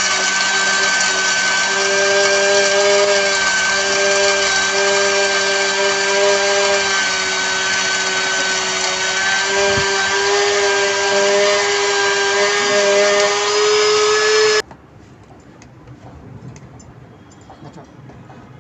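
700-watt electric spice grinder running at full speed while grinding cinnamon into powder: a loud steady motor whine, its pitch creeping up slightly before it stops abruptly near the end. A few faint clicks follow.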